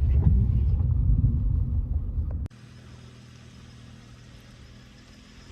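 Loud low rumble of a truck on the move, heard from inside the cab. About halfway it cuts off abruptly, leaving a faint steady low hum.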